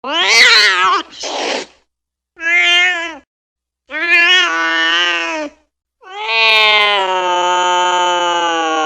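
Angry cat meowing: four drawn-out meows with short gaps between them. The first wavers in pitch and is followed by a brief harsh, noisy sound. The last is a long held yowl starting about six seconds in.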